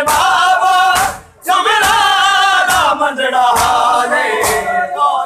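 A crowd of men chanting a Shia noha lament in unison while beating their chests (matam) in time, about one slap a second. There is a brief break about a second in.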